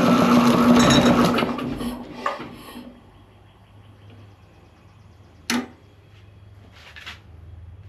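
The compressor's cheap 5 hp electric motor, switched on under the old two-stage pump, runs loud with a steady hum and rush of air for about a second and a half, then winds down and stops within another second or two: the motor cannot carry the pump's load. A sharp click follows a few seconds later.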